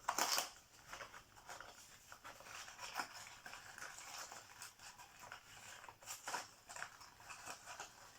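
Hands opening a small cardboard advent calendar box and handling the packaging inside: rustling, crinkling and light clicks, loudest right at the start and again about three and six seconds in.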